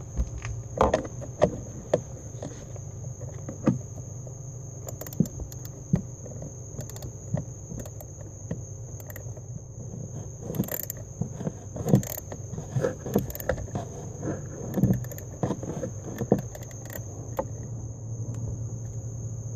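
Small ratchet wrench clicking in short, irregular runs as it drives a mounting screw home on a heat door actuator.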